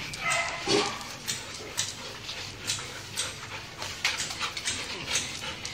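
A dog: a short whine just under a second in, then a string of short, sharp, irregular sounds.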